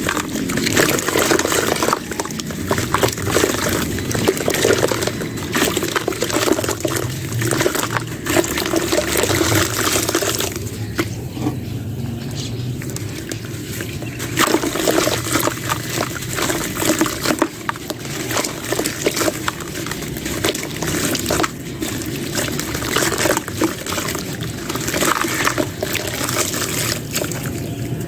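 Dry clay crumbling into water: a dense, continuous run of crunching crackles mixed with a wet pouring, trickling sound, easing off for a few seconds partway through.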